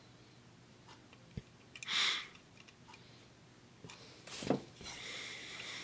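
A few sharp clicks and light scraping from small parts handled at the bench: a wire connector pushed into the laser module with needle-nose pliers, the pliers set down, and the module's metal housing turned over in the hands.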